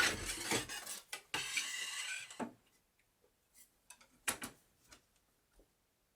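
Wood being worked and handled during bed building: a rough scraping sound for about the first two and a half seconds, then a few scattered light knocks, the loudest a little past four seconds in.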